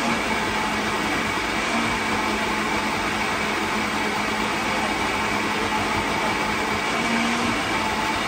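Electric kitchen blender running steadily while puréeing basil into pesto: an even motor whir with a steady hum.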